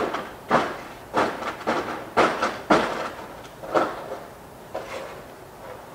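About ten short knocks at irregular intervals, bunched in the first three seconds and sparser after, over a steady background noise.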